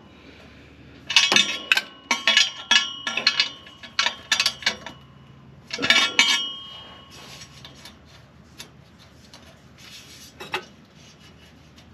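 Metal pieces clanking and clinking together, many quick strikes with short ringing notes. They come in a busy run from about a second in and a shorter burst around six seconds in, followed by fainter scattered clinks.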